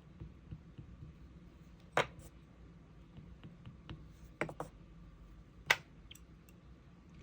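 A few sharp taps and clicks of hand tools set down and pressed against a tabletop, four or five in all, the loudest near the end.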